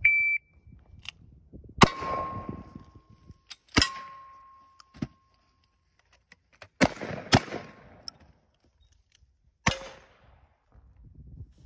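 A shot timer's short electronic start beep, followed by about five gunshots spaced one to three seconds apart, the last two close together. Steel targets ring after the first two shots.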